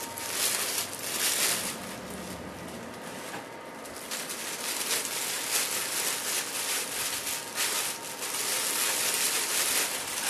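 Plastic packaging crinkling and rustling as it is handled, in several bursts.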